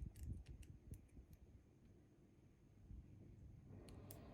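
Near silence, with a few faint, light clicks from lock-picking tools working inside a Bi-Lock cam lock.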